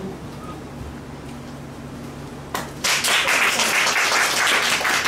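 Quiet room tone, then an audience breaks into applause a little past halfway, dense, many-handed clapping.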